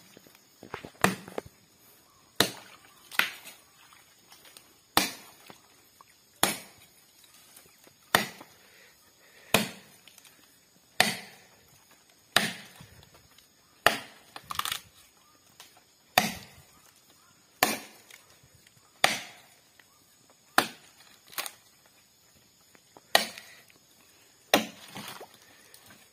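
Machete chopping into the base of a sago palm trunk, about twenty sharp strikes at a steady pace of roughly one every second or so, now and then two in quick succession.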